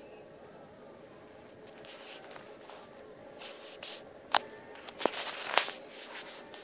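Handling noise from a handheld phone: a run of short hissing rustles and a few sharp clicks, loudest about five seconds in.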